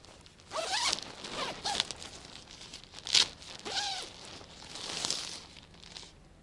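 Zipper on a nylon tent being pulled in several short runs, some rising in pitch as the slider moves, the sharpest a little after three seconds in, with light rustling of the tent fabric.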